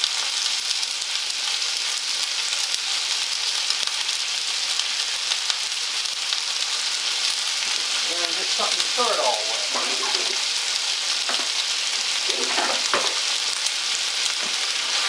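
Sliced steak strips sizzling in a hot, oiled stainless steel skillet, with onions frying in a second pan: a steady frying sizzle.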